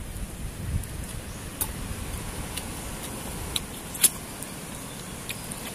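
Eating sounds from cooked chicken feet being picked apart by hand and chewed: short sharp clicks and smacks about once a second, one louder than the rest about four seconds in, over a low rumble of wind on the microphone.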